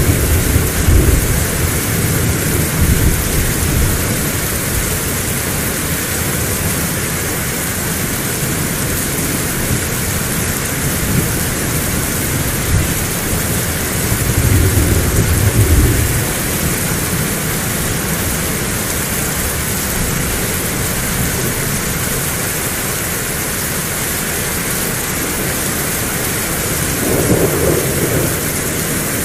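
Heavy rain falling steadily, with low rumbles of thunder swelling up three times: at the start, about halfway through and near the end.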